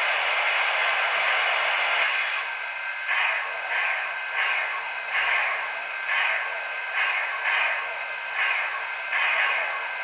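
Digital steam sound from an HO-scale Southern Pacific cab forward model's Loksound V5 decoder, played through its small speakers: a steady hiss for the first couple of seconds, then slow exhaust chuffs about two a second as the locomotive starts moving.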